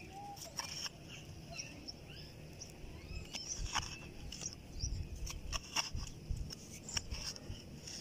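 Small hand trowel scraping and digging into dry, crumbly soil: irregular crunching scrapes and clicks, with dull thuds of earth being loosened, busier in the second half.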